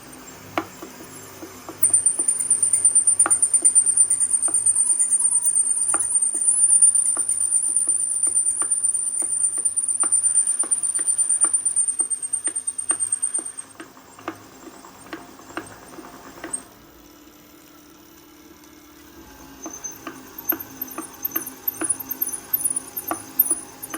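Bafang BBS02 mid-drive e-bike motor running loaded against the brake, with a high-pitched whine and a repeated sharp knocking; the knocking under load is the fault being investigated. The whine drops away about halfway through, the motor runs quieter for a few seconds, then the whine and knocks return near the end.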